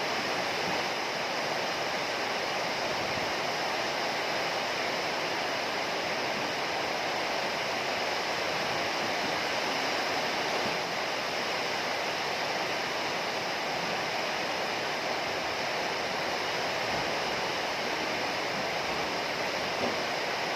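Heavy rain falling steadily, an even, unbroken hiss with no thunder.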